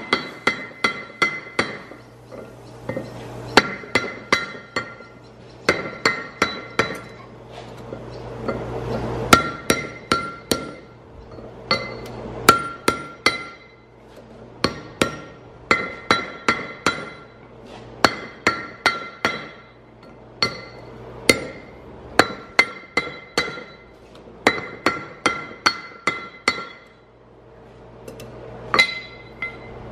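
Hand hammer striking a red-hot forge-welded steel ring on a cone mandrel to shape it. The blows come about three a second in quick runs of four to six with short pauses between, and each blow rings with a clear metallic tone.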